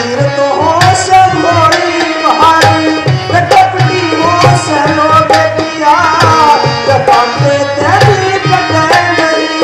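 Live ragni music: a hand drum plays a steady rhythm under a melody line that bends and slides in pitch.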